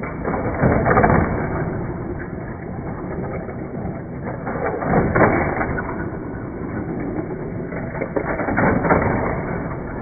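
Motorized Hot Wheels track set running: a steady whir with toy cars rattling along the plastic track, swelling louder about a second in, around five seconds and again after eight seconds.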